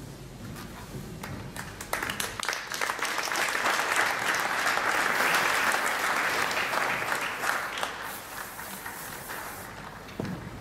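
Audience applauding. The clapping builds about two seconds in and dies away near the end.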